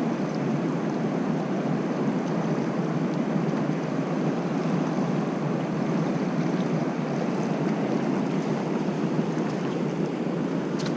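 Mountain stream water rushing steadily over rocks, a constant even wash of flowing water.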